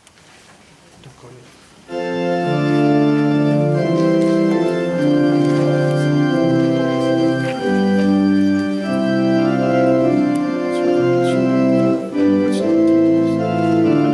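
Church organ starts playing about two seconds in, sounding sustained chords that change every second or so.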